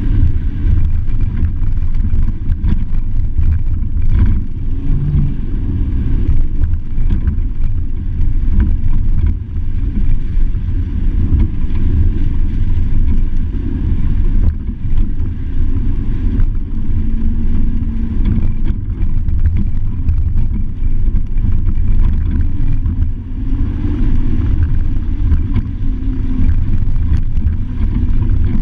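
Truck driving on a dirt road, heard from a camera mounted on it: a loud, steady low rumble of engine, tyres and wind that wavers continuously in level.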